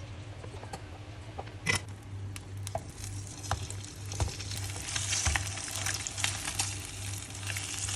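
Crackling, rustling handling noises with scattered sharp clicks, growing busier about three seconds in: food and its containers or wrapping being handled and stirred for eating. A steady low hum runs underneath.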